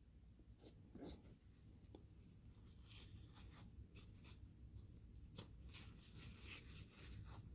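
Near silence, with a few faint clicks and soft scratching from metal tweezers working at the brush holders of a small model-locomotive motor as its carbon brushes are put back in.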